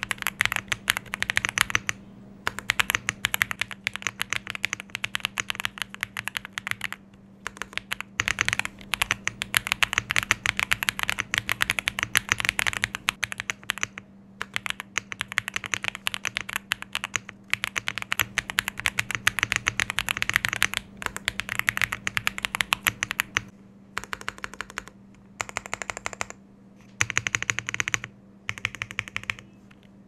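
Fast typing on a JRIS 65 mechanical keyboard fitted with Akko Cream V3 Pro switches: rapid runs of keystrokes that break off for short pauses every few seconds.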